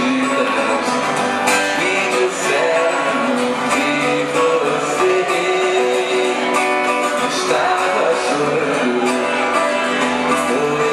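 Live music: a man singing into a microphone while strumming a guitar.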